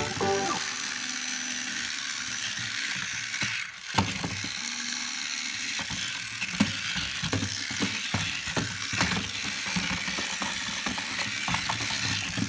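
Small battery toy police jeep (a tipping tumbling car) running, its little motor and plastic gears whirring steadily. Irregular sharp clicks and knocks come from about four seconds in as the toy tumbles and bumps against the walls of a clear plastic jar.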